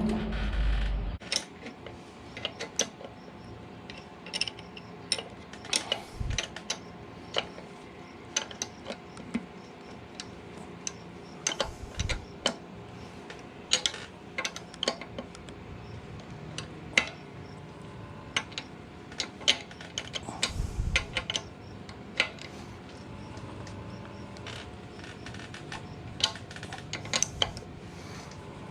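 Hand-tool work on a motorcycle's front fork: scattered sharp ratchet clicks and metal clinks as the front axle pinch bolt is tightened, with a few dull thumps along the way.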